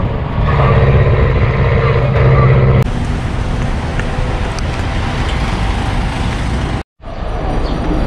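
Engine of an open-back truck taxi running steadily at road speed for about three seconds, then a cut to the steady noise of a bus station with engines and distant voices.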